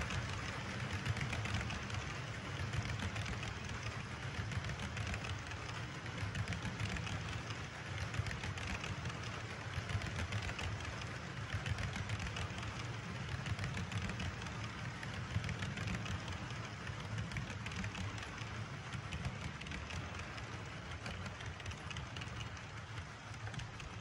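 HO-scale model tank cars and covered hoppers rolling along the track: a steady rolling rumble thick with fine clicking from the wheels over the rails and joints.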